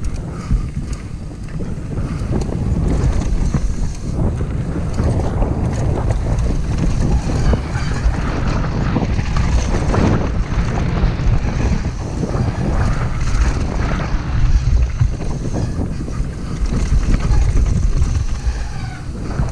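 Steady wind rush on a GoPro's microphone as a downhill mountain bike runs fast over a dirt trail, with tyre noise on the loose dirt and scattered small knocks and rattles from the bike.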